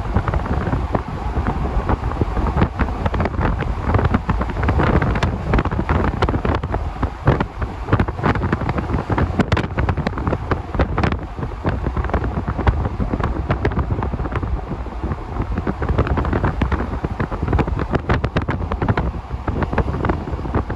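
Wind buffeting the microphone: a loud, gusty rumble with constant crackling.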